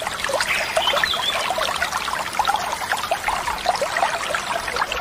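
Mountain stream rushing over rocks, a steady wash of water with many quick bubbling gurgles.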